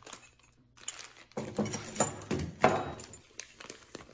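Plastic parts bags and a paper instruction sheet rustling and crinkling as the kit is unpacked by hand. Between about one and a half and three seconds in, a man's voice hums or mutters with no clear words, and it is the loudest sound.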